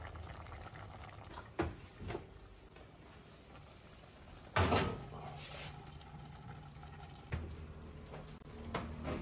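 Earthenware güveç pot being set into an oven on its metal rack: a couple of light knocks, then a louder clattering knock about four and a half seconds in, and a few more clunks near the end, over a low steady hum.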